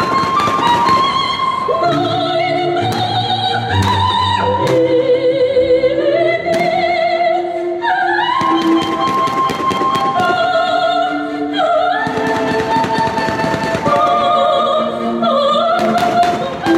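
A recorded operatic voice sings long notes with a wide vibrato, played loud over the show's speakers. Scattered sharp bangs of exploding fireworks break in every few seconds.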